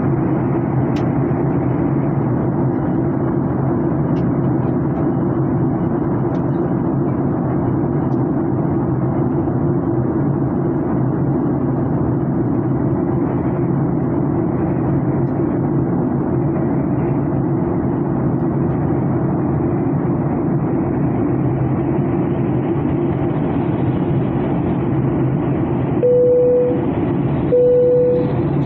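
Steady rumble and rush of an airliner cabin in flight. Near the end, two short steady beeps about a second and a half apart.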